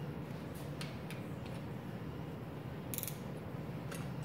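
A few light metallic clicks and taps as a hand wrench is handled and fitted onto a bolt, with a short cluster of clicks about three seconds in, over a steady low hum.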